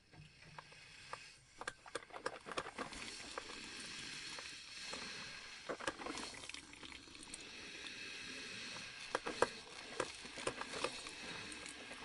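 Coffee brewer brewing: a steady watery hiss with irregular pops and clicks.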